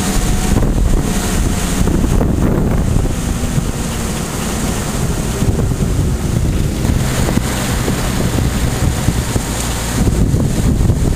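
Engine drone of a vehicle on the move in a convoy of GMC CCKW army trucks, with heavy wind buffeting on the microphone.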